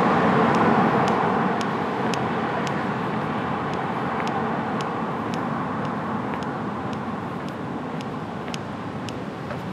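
Street traffic noise that is loudest at the start and slowly fades as a vehicle moves off, with the walker's footsteps ticking on the pavement at an even pace of about two a second.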